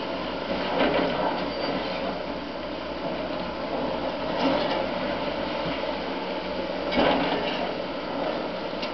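Demolition excavator working on a concrete apartment block: a steady machine noise from its engine, with three louder crashes of breaking and falling concrete about a second in, around four and a half seconds, and at about seven seconds.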